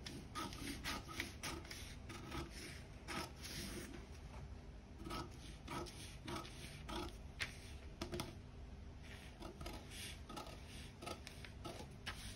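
Scissors cutting along a sheet of pattern paper: a run of short, irregular snips, with the paper rustling as it is turned.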